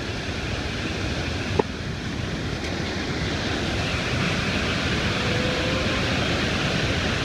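Steady rushing of a whitewater rapid pouring through a narrow rock gorge, with one brief knock about one and a half seconds in.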